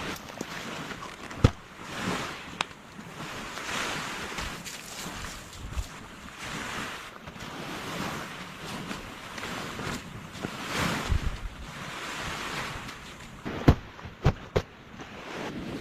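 Sea waves breaking on the shore in repeated swells, with wind. A few sharp knocks stand out: one about a second and a half in, and a short cluster near the end.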